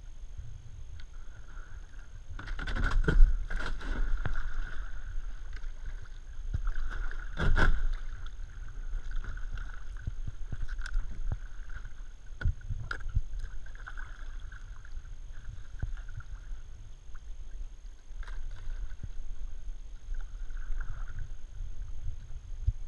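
Double-bladed kayak paddle strokes in a shallow creek: irregular splashes and drips of water, with a few sharp knocks. The splashing is loudest a few seconds in and again at about eight seconds.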